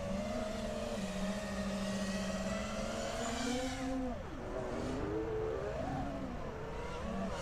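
Brushless motors and props of a 5-inch FPV freestyle quadcopter whining with the throttle. The pitch holds steady, climbs a little about three and a half seconds in, drops sharply a moment later as the throttle is chopped, then rises and falls again with short punches.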